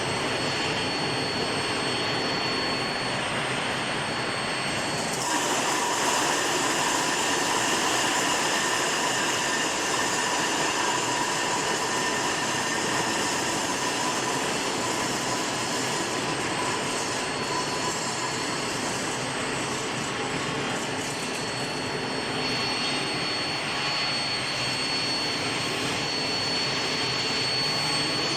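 Steel bar induction hardening furnace line running: a steady, loud machine noise with a thin high-pitched whine. The whine fades about five seconds in as the noise brightens, and comes back near the end.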